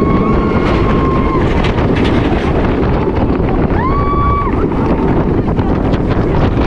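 Wind buffeting the on-ride camera's microphone as the Boosterbike motorbike coaster train runs along its track, with the ride's running noise underneath. Twice a high held tone rises over the noise, the second about four seconds in.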